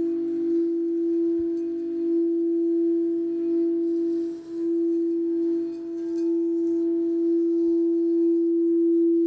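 Frosted crystal singing bowl tuned to E (mi), made to sing by rubbing a mallet around its rim: one steady, pure, sustained tone that swells and ebbs slightly, with a brief dip about four and a half seconds in.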